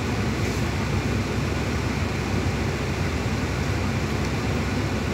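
Proton Wira's air-conditioning blower fan running at high speed, a steady rush of air through the dashboard vents, pushing out leftover air-con cleaner foam.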